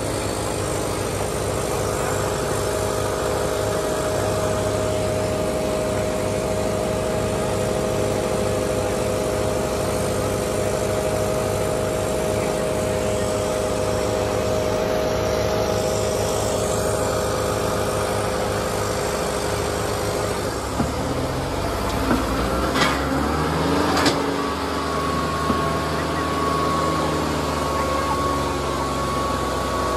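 Two diesel tractors, a Kubota MU5501 and a New Holland, running hard under heavy load as they pull against each other in a tug-of-war. The engine note shifts about two-thirds of the way through, with a few sharp knocks, and a steady high tone sets in soon after.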